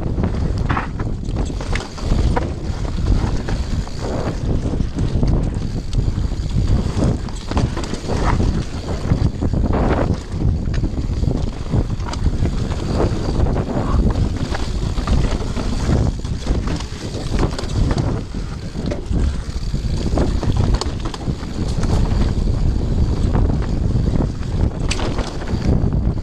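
Mountain bike riding fast down a dirt forest trail, heard through an on-board camera microphone: heavy wind noise buffeting the mic over tyre rumble, with frequent short clattering knocks as the bike goes over bumps.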